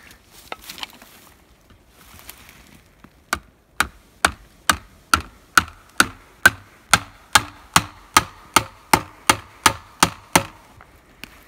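An axe's poll hammering a wedge into a split stump to pinch a chainsaw bar in place: a steady series of sharp knocks, about two a second, starting about three seconds in and stopping shortly before the end.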